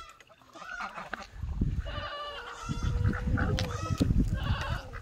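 Chickens calling: a string of short squawks and clucks, with one longer drawn-out note through the middle, over a low rumbling noise on the microphone.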